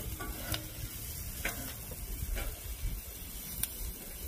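Sliced onions and peppers sizzling on a hot flat-top griddle, stirred with a metal spatula that clicks and scrapes against the steel plate a few times.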